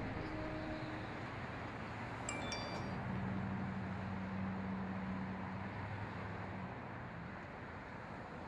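Steady rushing noise that slowly fades, with a few brief high chiming pings about two and a half seconds in and a low steady hum that comes in about three seconds in and drops out a few seconds later.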